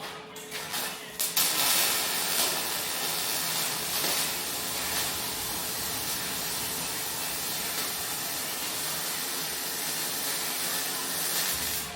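MIG welding arc crackling and hissing in one steady run of about ten seconds, after a few short sputters as the arc strikes near the start.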